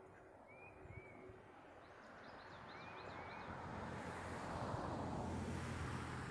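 A vehicle passing by: its engine and tyre noise swells over the second half and is loudest near the end. In the first half, a songbird gives short chirps that rise and fall.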